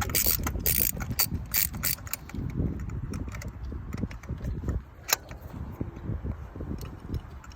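Socket ratchet clicking as a spark plug is unscrewed from the engine's cylinder head with a 14 mm spark-plug socket on an extension. The clicks come in quick runs early on, then thin out and grow fainter.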